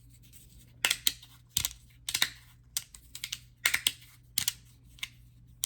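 3D-printed resin magnetic fidget slider worked back and forth by hand, its pieces snapping into place against the magnets with sharp clicks: about a dozen at an irregular pace, some in quick pairs.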